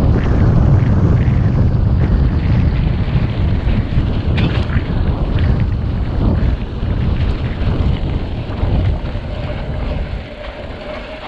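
Wind buffeting the microphone and a mountain bike rattling over rough trail on a fast descent, with scattered knocks from the wheels striking roots and stones. The noise eases a little near the end.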